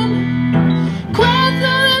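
Live song: a woman singing into a microphone over guitar accompaniment. A held note ends at the start, the guitar carries on alone for about a second, and she comes in with a new phrase.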